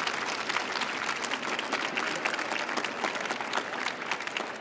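Audience applauding, a dense stretch of clapping that begins to thin out near the end.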